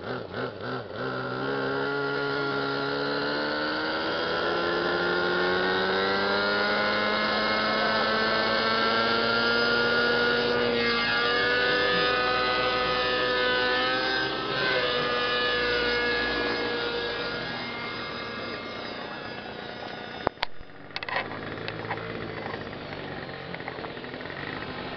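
Radio-controlled model helicopter spooling up and lifting off. A pulsing sound at first, then a whine that rises steadily in pitch over about ten seconds and holds high with a few shifts in pitch, growing quieter as the helicopter climbs away. A sharp click and brief dropout come about twenty seconds in.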